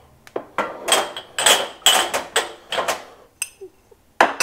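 Metal and ceramic kitchenware knocking and clinking as it is handled and put away: a dozen or so sharp, irregularly spaced knocks, some with a short metallic ring.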